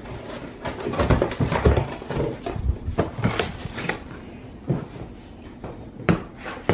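Cardboard packaging being handled: a busy stretch of scraping and knocking as the box's inner lid and insert are moved, then a few separate sharp knocks as the laptop is lifted out and set down on the box.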